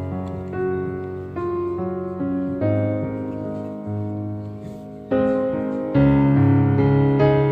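Background piano music: slow, sustained chords, with a louder chord struck about five and six seconds in.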